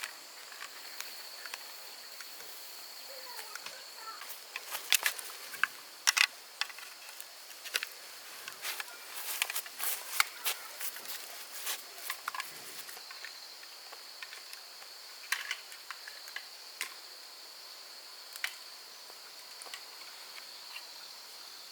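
Insects droning steadily at a high pitch, with a run of sharp clicks and knocks from about four seconds in to the middle, and a few more scattered later.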